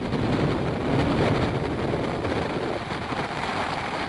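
Hurricane storm noise: strong wind gusting over a phone's microphone, with heavy rain and rushing floodwater under it, a steady, uneven roar.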